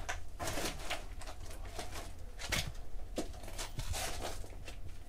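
Irregular footsteps and scuffs: a string of short scrapes and knocks, with a few louder ones about halfway through and near the end.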